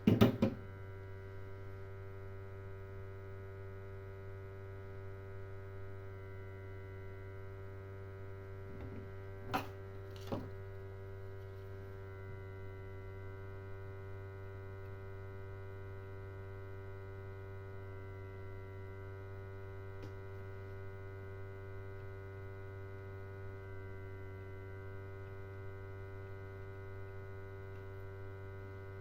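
Steady electrical hum from the repair bench, with a few sharp clicks of tools on the workpiece: one right at the start and two about ten seconds in.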